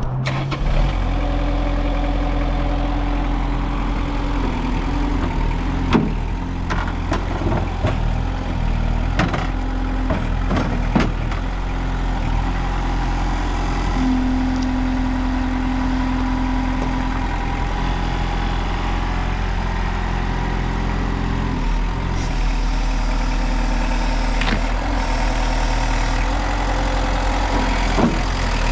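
Ingersoll Rand/Blaw-Knox HP0950 tracked asphalt paver's diesel engine running at a steady idle. A steady mid-pitched whine comes in twice for a few seconds, and there are scattered clanks and knocks.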